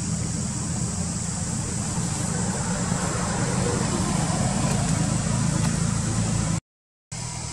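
A steady low engine-like drone, even in pitch, that cuts out completely for about half a second near the end.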